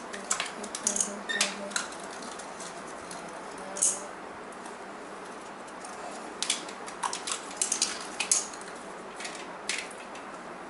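Plastic clicks and clatter of a BoomCo toy dart blaster and its darts being handled and loaded, in irregular clusters of sharp clicks.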